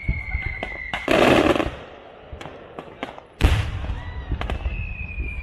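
Aerial fireworks display: a long whistle falling slightly in pitch ends about a second in with a loud crackling burst, a heavy bang comes about three and a half seconds in, sharp cracks are scattered throughout, and a second falling whistle starts near the end.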